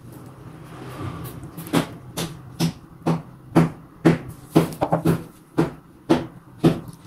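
Metal spoon clinking against a glass mixing bowl while scooping a thick vegetable batter, about a dozen sharp clinks at roughly two a second starting a couple of seconds in.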